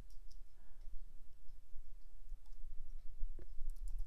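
Computer keyboard keystrokes clicking as a few characters are typed, with a sharper click about three and a half seconds in and a quick run of keystrokes near the end, over a steady low hum.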